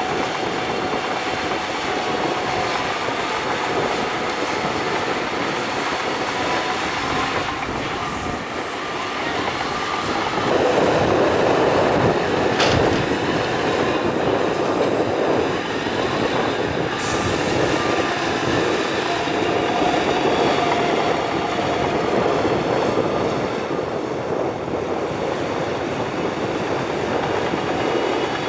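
Shantui crawler bulldozer running: a steady diesel engine under the clank and squeal of its steel tracks, with thin high squealing tones throughout. The noise gets louder about ten seconds in and stays up for several seconds, with one sharp knock near the middle.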